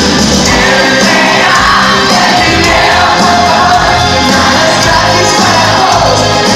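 Rock band playing live: a dense, loud wall of electric guitars, bass and drums with singing and shouts over it.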